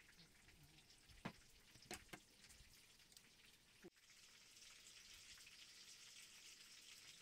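Near silence: a few faint clicks of cutlery against a plate, then, about four seconds in, a faint steady hiss.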